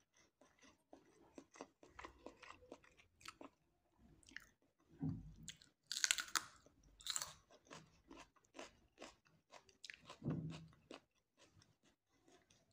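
Close-up chewing of crunchy raw green pepper: an irregular run of crisp crunches and bites, louder about five seconds in, again around six to seven seconds, and about ten seconds in.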